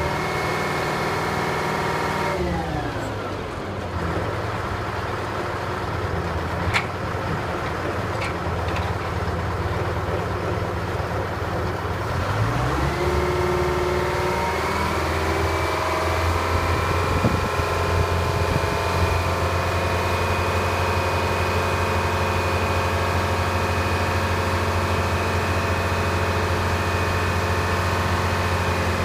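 Texoma 700 drill rig's engine running at raised speed, dropping to idle a couple of seconds in, then revving back up about twelve seconds in and holding steady at high speed.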